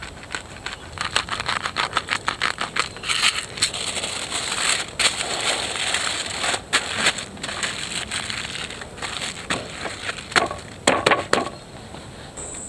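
A handheld salt grinder clicking rapidly for a couple of seconds, then sheets of aluminium foil crinkling and crackling as they are folded and creased into a parcel, with a few sharper crackles near the end.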